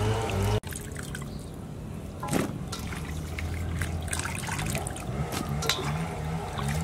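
Background music cuts off about half a second in, leaving water splashing and trickling as cut pineapple pieces are washed by hand in a steel bowl, with one louder splash about two and a half seconds in. Faint music creeps back near the end.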